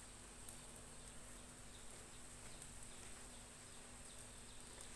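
Faint steady hiss with a few soft crackles from pork grilling in a wire grill basket over a gas stove burner.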